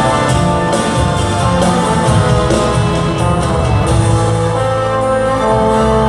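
Live rock band playing an instrumental passage: sustained guitar chords over a steady bass line, with no singing.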